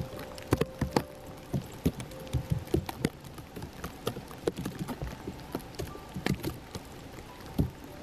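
Irregular soft taps and knocks close to the microphone over a faint hiss, as of wet falling snow and drips pattering on something near the camera.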